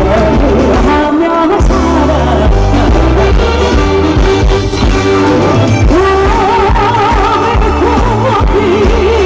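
A woman sings live into a microphone over amplified accompaniment with a steady, heavy bass beat. From about six seconds in she holds long notes with a wide vibrato.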